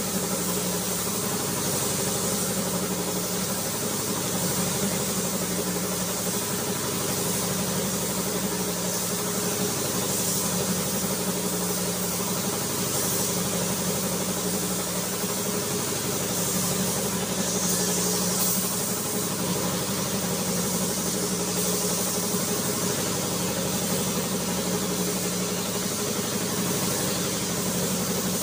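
Spray gun hissing as paint is sprayed onto a car door, over a steady machine hum; the hiss swells now and then.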